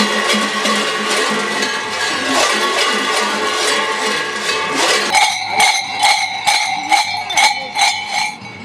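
Large copper kukeri bells (chanove) worn at the dancers' waists clanging in a rhythmic jangle as they step and swing. About five seconds in, a single bell takes over, struck in even strokes about three times a second with a clear ringing tone.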